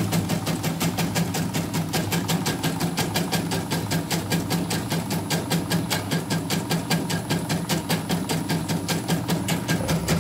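CNY portable computerized embroidery machine, covers removed, stitching a test pattern: a steady, rapid rhythmic clatter of needle strokes over the hum of its motor. This is the test run after repair, which the repairer calls an OK result.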